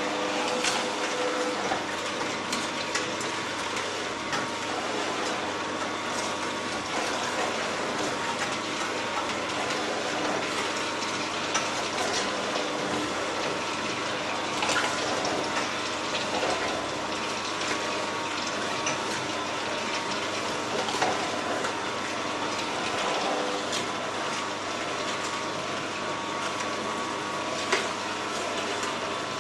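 Two slow juicers, an all-stainless-steel Angel twin-gear juicer and an Omega VRT 350 vertical auger juicer, running together while apple pieces are fed in: a steady motor and gear hum with crunching, and a few sharp cracks as the apples are crushed.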